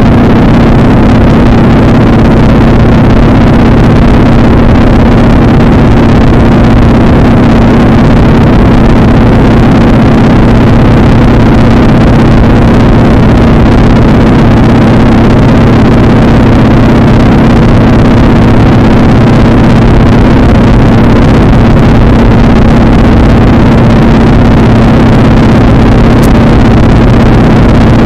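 PZL-104 Wilga light aircraft's engine and propeller droning steadily in level flight, heard loud from on board with no change in power.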